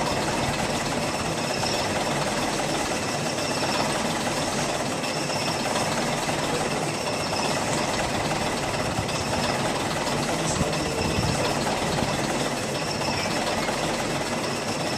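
An engine or motor running steadily, an even mechanical drone with a faint high whine over it.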